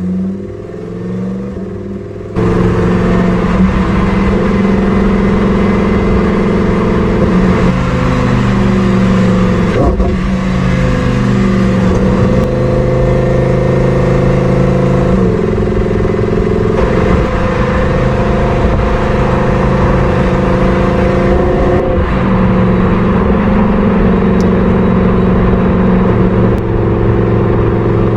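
Lamborghini Huracán STO's 5.2-litre V10 engine and exhaust running with a steady note that shifts up and down slightly in pitch now and then. It gets louder about two seconds in.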